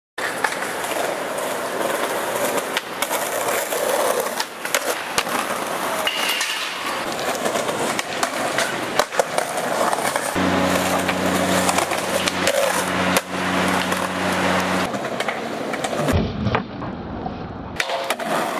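Skateboard wheels rolling on concrete and stone, broken by repeated sharp clacks of the board popping and landing.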